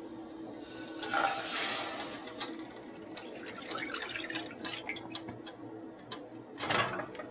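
Milk poured from a measuring jug into a nonstick frying pan: a splashing pour starting about a second in, easing off into drips and small ticks as the jug empties, with a knock near the end.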